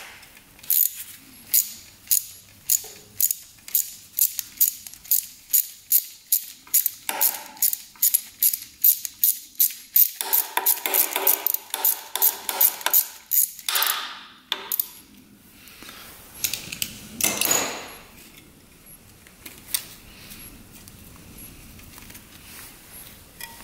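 Socket ratchet clicking in a quick, even run of strokes, about three clicks a second, as a nut on the motorcycle's ignition coil is turned; the clicking stops about halfway through. Two short rustling sounds follow, then only faint handling.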